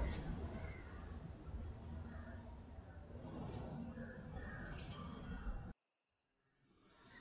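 Quiet room ambience under a steady, high-pitched insect trill, like crickets. Near the end the background cuts out abruptly, leaving only the faint trill.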